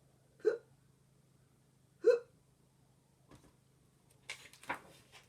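A woman's voice making two short, sharp imitation hiccups, a 'hic' about half a second in and another about a second and a half later.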